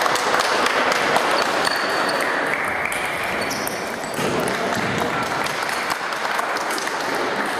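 Table tennis balls clicking off bats and tables from several tables across a busy sports hall, many scattered clicks over a steady background murmur.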